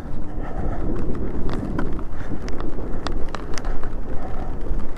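Daymak Pithog Max electric dirt bike climbing a wet, muddy hill: a steady low rumble of tyres over rough ground, with irregular sharp clicks and knocks scattered throughout.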